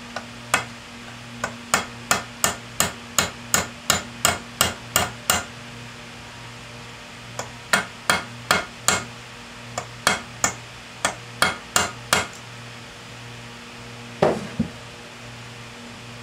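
Small hammer tapping a steel taper pin home into a lathe gearbox gear and shaft: sharp metallic strikes about three a second, in runs of several blows with short pauses between, ending with a couple of duller taps near the end.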